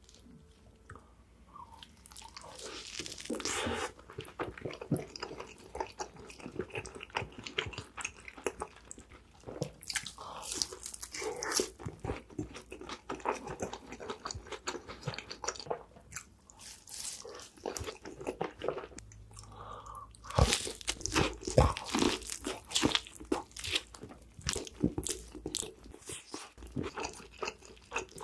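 Close-miked eating of crispy fried chicken: repeated crunching bites into the breaded crust and wet chewing, in irregular bursts, the loudest crunches about twenty seconds in.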